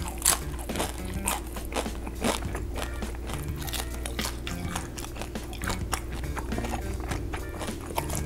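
Close-miked chewing of fried acorn jelly (dotorimuk): many irregular small crunches and clicks from the fried coating. Background music with low steady tones runs underneath.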